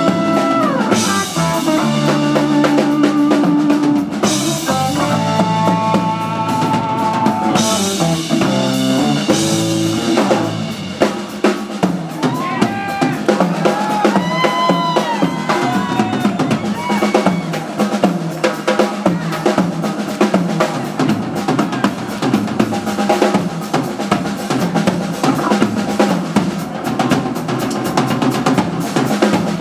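Live rock band, with electric guitar, electric bass and Hammond B-3 organ, playing an instrumental over a drum kit. About ten seconds in the other instruments drop away and the drums carry on alone in a drum solo of snare, tom and bass-drum strokes with cymbals.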